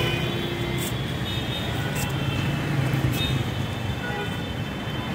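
Steady street traffic: engines running and road noise, with a few short, high scraping strokes about a second apart from a knife cutting the peel off a pineapple.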